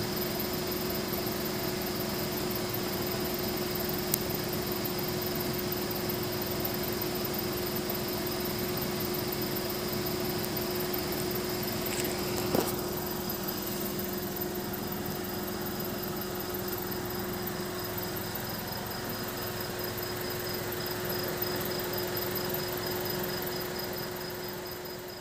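Night ambience: a steady mechanical hum under an even noisy background, with insects chirping in rapid high pulses. A single click about four seconds in and a short knock near the middle.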